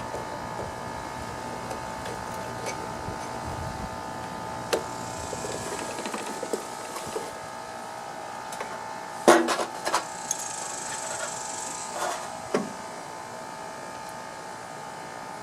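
Hand tools and metal engine parts being handled: scattered clicks and knocks, with a short clatter about nine seconds in, over a steady background hum.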